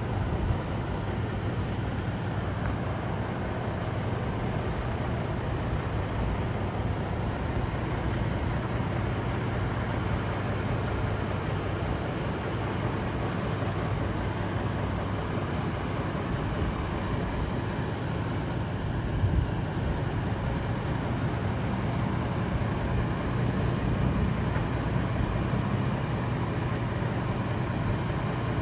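Fire trucks' engines idling steadily, a low hum under even outdoor noise, with one brief thump about two-thirds of the way in.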